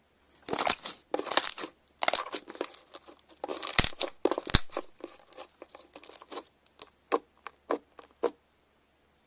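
Slime being squeezed and pressed by hand, crackling and popping in dense bursts. Near the end these thin out to a run of separate short pops, about three a second.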